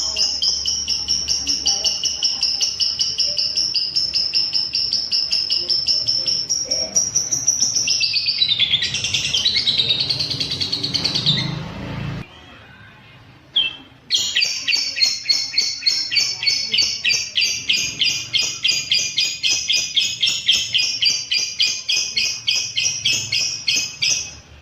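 Lovebird chattering in a long, fast trill of high, rapid repeated notes, the extended 'ngekek' song. It breaks off about halfway for roughly two seconds, with one short chirp in the gap, then starts again.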